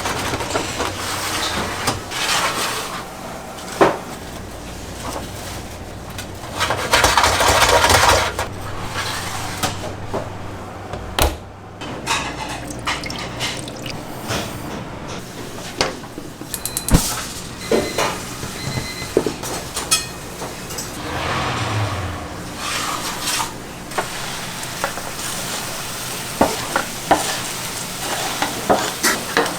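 Restaurant kitchen work: metal utensils, pans and dishes clattering and scraping, with spells of hissing that sound like food sizzling, the loudest about a quarter of the way in.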